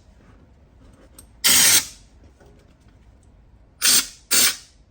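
Bitumen undercoating being sprayed onto a car frame in short hissing bursts: one about a second and a half in, then two quick ones close together near the end.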